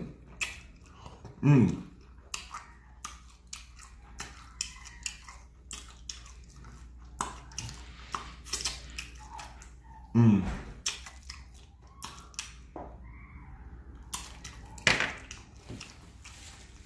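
Close-up mouth sounds of eating fried chicken wings: chewing and wet lip-smacking clicks, with two short, low voiced hums, about a second and a half in and again about ten seconds in.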